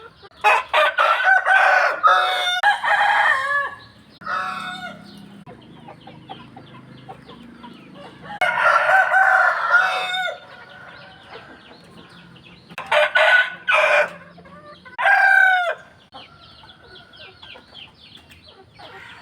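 Roosters crowing one after another in a series of loud crows, with quieter short calls between them.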